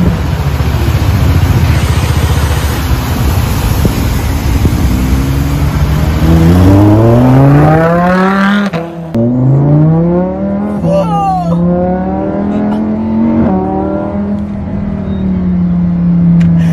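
Lamborghini Huracán's V10 engine accelerating: a loud rushing noise at first, then the engine note climbing, dropping sharply at a gear change about nine seconds in, climbing again and settling into a steady drone.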